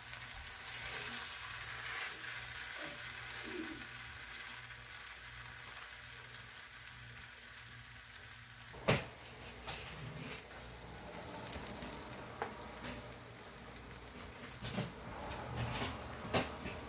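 Oil sizzling steadily in a nonstick griddle pan as red-sauce-dipped tortillas fry into folded enchiladas. A spatula knocks against the pan a few times, loudest about nine seconds in.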